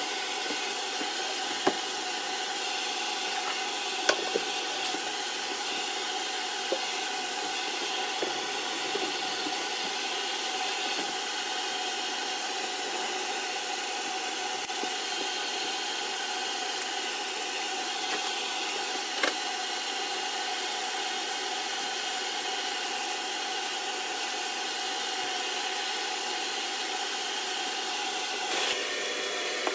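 A steady mechanical whir and hiss with a constant hum running under it, broken by a few short light knocks, the sharpest about four seconds in.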